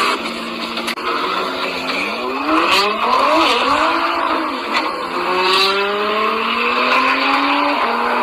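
Open-top car's engine running while driving, its pitch climbing as it speeds up about two seconds in, wavering and dropping back, then rising slowly again from about five seconds.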